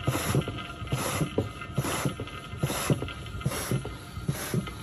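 Sealey hand-operated oil and fluid extractor being pumped in a steady rhythm, a little over one stroke a second, each stroke a knock with a short hiss. The pump is drawing a vacuum to suck the old engine oil up through the dipstick tube.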